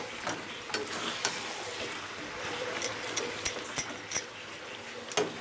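Metal spatula clinking and scraping against a metal kadai as a thick chicken and potato curry is stirred, with a run of sharp clinks in the middle.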